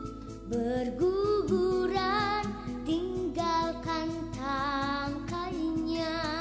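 Background music: a children's song, a sung melody over instrumental backing.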